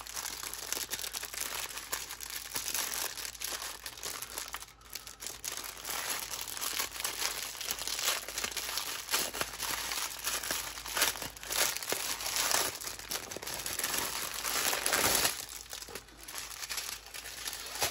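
Thin plastic crinkling and rustling as hands work a bundle of small plastic bags of diamond-painting drills and strip off its clear plastic wrap; an irregular crackle with a couple of brief lulls.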